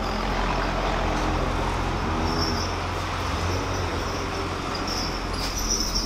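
A steady low mechanical hum and noise, as of a motor or machine running, holding an even level throughout. Faint high chirps come through a couple of times over it.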